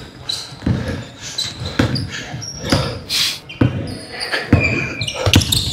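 A basketball bouncing repeatedly on a hardwood court, a little under two thuds a second, echoing in a large hall, with short high sneaker squeaks between the bounces.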